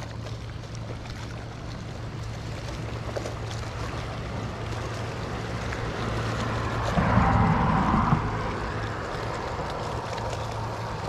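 Wind blowing across the microphone over choppy water lapping against a concrete seawall, with a steady low hum underneath; the wind noise swells louder for about a second around seven seconds in.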